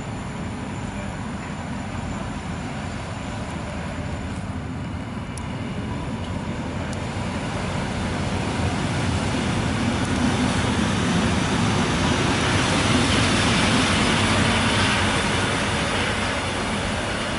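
Two coupled EN57AKM electric multiple units arriving at a platform. The running noise grows steadily louder as the train approaches, is loudest about thirteen to fifteen seconds in as it draws alongside, then eases a little.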